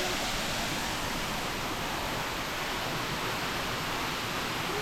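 Steady rush of falling water from a waterfall, an even hiss-like roar that doesn't change.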